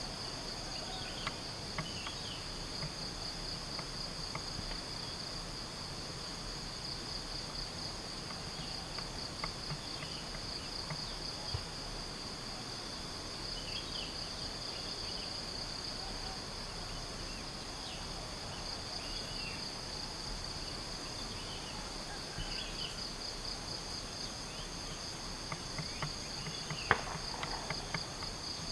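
Steady, high-pitched, finely pulsing chorus of forest insects, with a few faint short chirps scattered through it and a single sharp pop near the end.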